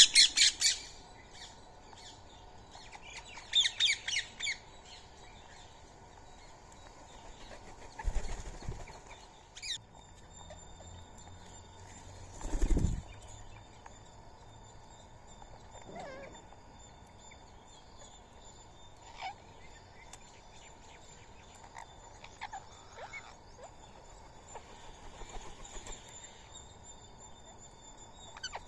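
Indian ringneck parakeets calling: a loud squawk right at the start and a quick run of about five calls a few seconds in, then sparse faint calls. Two dull thumps come about 8 and 13 seconds in.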